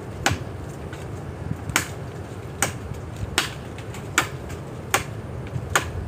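A blade chopping into a tree trunk: seven sharp strikes, a little under a second apart.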